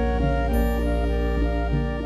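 Instrumental background music: held notes that change every fraction of a second over a steady low note.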